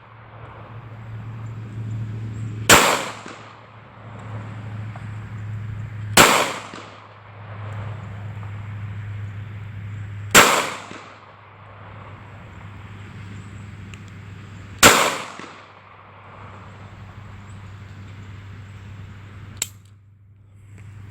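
Ruger LCP .380 ACP pocket pistol firing Perfecta 95-grain rounds: four single shots about four seconds apart, each sharp crack trailing off briefly. A small sharp click follows near the end.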